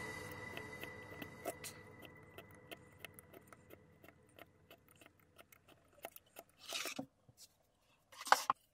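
Background music fading out over the first couple of seconds, leaving small clicks and taps of steel rulers and a snap-off utility knife being handled on a cutting mat. A short scraping rustle comes just before 7 s and a louder brief scrape or clatter near the end.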